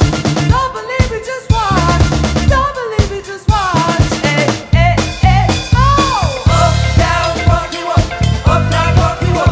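A band playing: drum kit with a steady beat of snare and bass drum hits, a bass line, and a lead melody that bends and glides in pitch.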